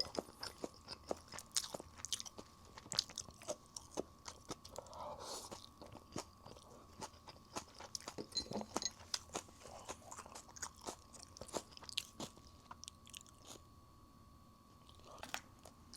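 Close-up crunching and chewing of fried chicken, a rapid run of crisp crackles from the fried coating with each bite. The crunching eases off about three-quarters of the way through.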